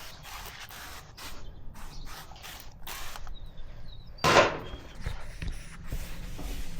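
Irregular mechanical clicks and creaks, a few a second, with one louder rushing burst about four seconds in.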